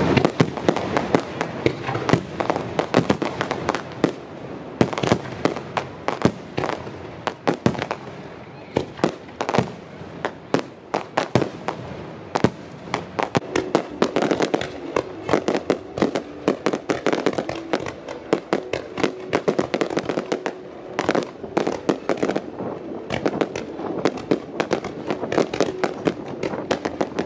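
Aerial firework shells bursting in a dense, unbroken barrage of bangs and crackling.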